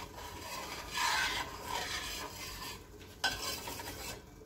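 Metal spoon stirring and scraping around the bottom of a stainless steel saucepan of boiling milk, sugar and butter, in uneven strokes with a short pause about three seconds in.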